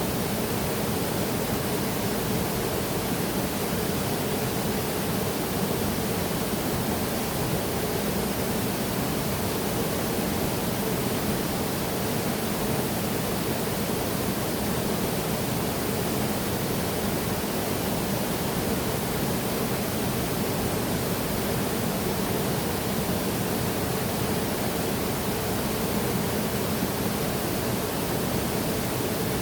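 Waterfall: a steady, unbroken rush of falling water with no change in level.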